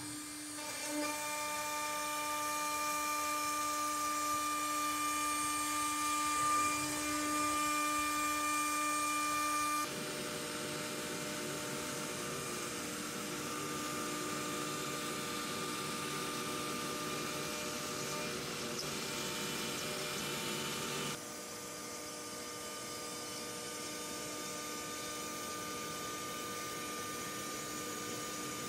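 CNC router spindle whining steadily with a stack of steady tones while a 1/8-inch compression bit cuts Baltic birch plywood. The sound changes abruptly twice, about a third and about two thirds of the way through.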